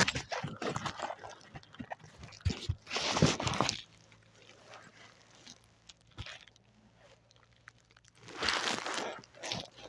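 Crunching and rustling in dry leaves and undergrowth, with scattered small cracks, and two longer spells of rustling about three seconds in and near the end.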